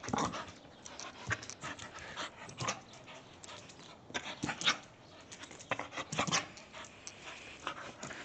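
A dog panting in short, irregular breaths.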